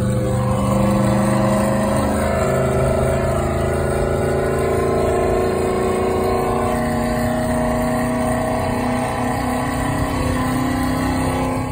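Synthetic muscle-car engine sound from the Rev Headz app, played through the car's cabin speakers and matched to the real engine's RPM, rising slowly in pitch as the car accelerates.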